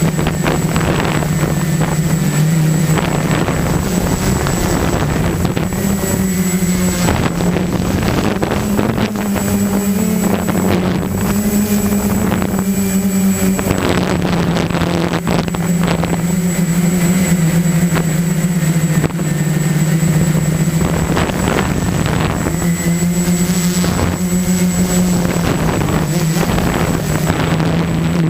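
Walkera QR-X350 quadcopter's motors and propellers buzzing steadily in flight, their pitch drifting up and down a little with throttle, with gusts of rushing air noise over the top.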